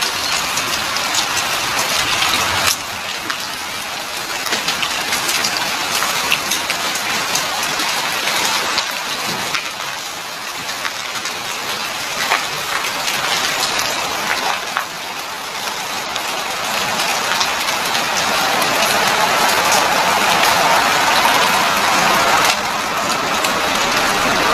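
Volcanic ash and small cinders falling, a dense steady patter of fine ticks on car bodies and pavement that sounds much like heavy rain. It grows louder about two-thirds of the way through.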